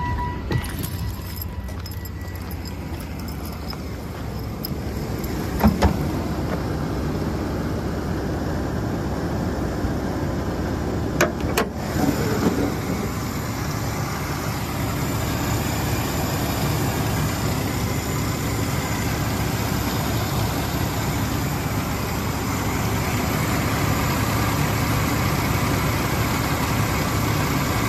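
2012 GMC Sierra 1500 pickup's engine idling steadily, heard first from the cab and then with the hood open. A few sharp knocks come about six seconds in and again around eleven to twelve seconds.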